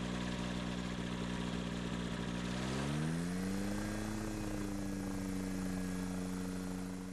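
Microlight trike's engine and pusher propeller running at taxi power. Its pitch rises slightly about three seconds in, holds steady, then fades near the end.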